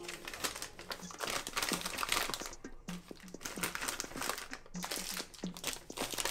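Plastic food packets crinkling and rustling in irregular bursts as they are handled and packed into a basket.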